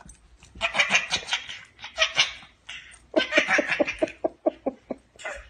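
A toddler laughing hard in several bursts, the last a quick run of short, evenly spaced laughs.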